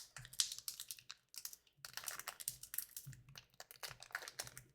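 Wrapper of a trading-card pack crinkling and cards being handled as the pack is opened: a quick, irregular run of small crackles and clicks.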